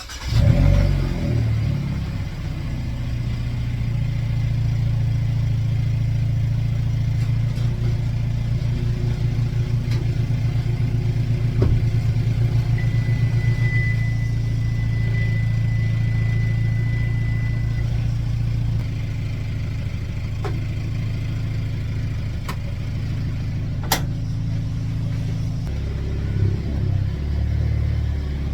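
Hyundai Elantra N's 2.0-litre turbocharged four-cylinder starting up and running at a fast idle on its first start after an oil change, run to check for leaks. The idle eases down about two-thirds of the way through, and the engine note changes again near the end.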